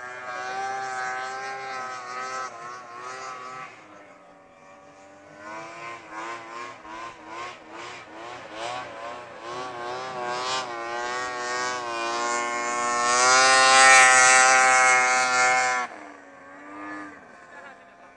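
Snowmobile engines racing across open water, their revs wavering up and down as they run. The sound dips about four seconds in, builds again, and is loudest near the end before dropping off suddenly.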